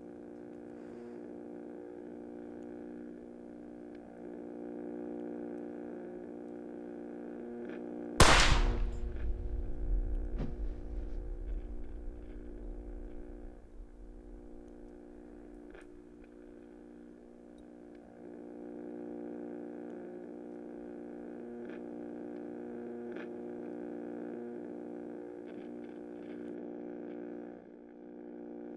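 A single loud pistol shot about eight seconds in, sharp at first and then dying away over several seconds as a low rumble. It sits over a steady droning chord that holds throughout.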